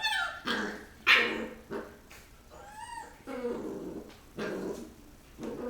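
Rottweiler puppies play-fighting: a string of short high yelps, barks and growls, the loudest yelp about a second in.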